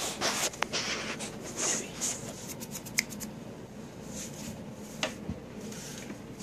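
Rustling and rubbing from hands handling things close to the microphone, with a few sharp clicks, the loudest about three seconds in.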